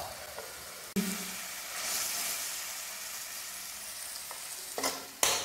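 Shrimp frying in margarine and Sprite in a wok, a steady sizzle that steps up abruptly about a second in. A couple of sharp knocks near the end.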